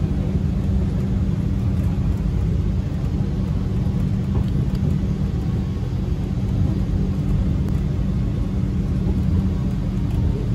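MRT Yellow Line rubber-tyred monorail train (Innovia Monorail 300) running between stations, heard from inside the car: a steady low rumble and hum. A faint falling whine starts near the end.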